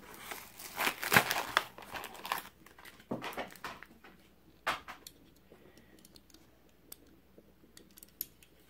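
Plastic blister packaging of a 1/64 diecast car crinkling and crackling in bursts as it is handled, busiest over the first few seconds, then a few faint clicks.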